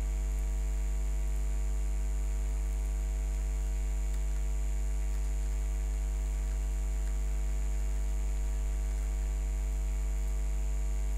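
Steady electrical mains hum: a constant low drone with a ladder of overtones and a faint high whine above it, unchanging throughout.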